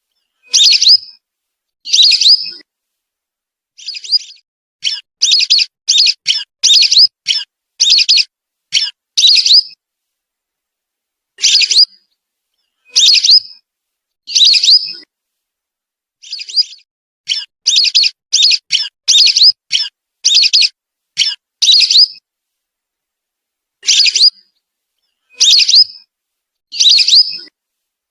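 Recorded whistling duck (belibis) lure calls: short, high whistled notes, some single and some in quick runs of several, separated by silent gaps.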